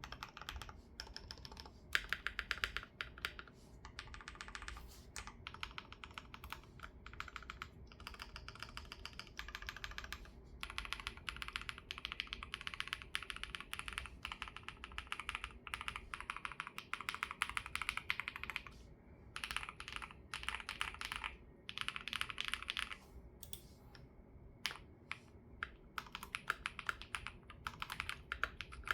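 Typing on an ROG Azoth Extreme mechanical keyboard with Y3x switches, plate set to hard mode and silicone dampening pads removed: fast runs of keystroke clacks in bursts with short pauses, and a few slower single key presses about three-quarters of the way in.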